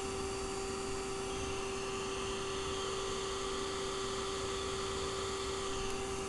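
Vacuum motor running steadily: a constant hum on one unchanging tone over a hiss of rushing air.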